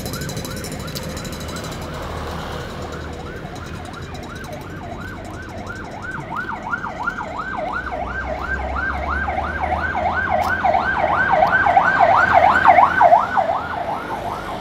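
Vehicle siren in a fast rising-and-falling yelp, about three sweeps a second, faint at first and growing louder toward the end, over the low rumble of road traffic.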